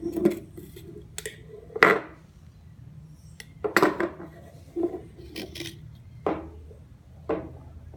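Kitchen dishes and utensils clattering: a series of sharp knocks and clinks about a second apart, some with a short ring, as things are handled on a counter.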